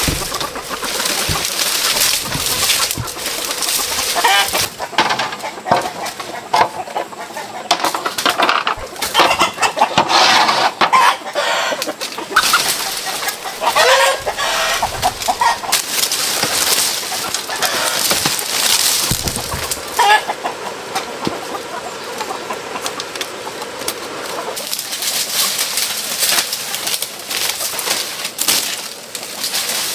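Chickens clucking, with many short clicks and rustles among the calls.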